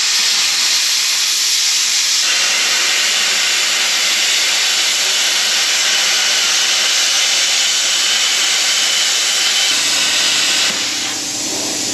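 Plasma torch cutting through steel plate: a loud, steady hiss of the arc and its air jet. Near the end the hiss eases slightly and a low steady hum comes in beneath it.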